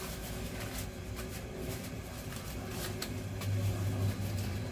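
Steady low mechanical hum of a kitchen appliance, growing louder about three and a half seconds in, with a few light crinkles of a paper towel being handled.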